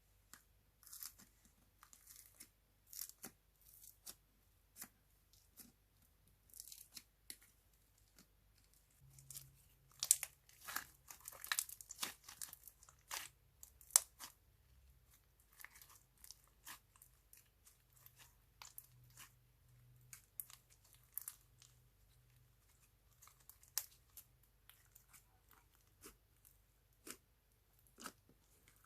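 Slime being handled and mixed: irregular crisp crackling, tearing and popping sounds, busiest and loudest about a third of the way through.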